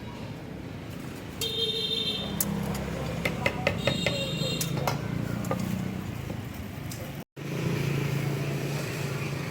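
Street traffic: motor vehicles running past, with a brief high-pitched tone twice and a run of sharp clicks in the middle. The sound drops out for an instant a little after seven seconds, followed by a stronger engine hum.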